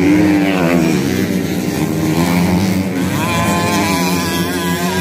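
Racing dirt-bike engines running at high revs as the bikes ride through a bend, their pitch wavering, one rising as it accelerates about three seconds in.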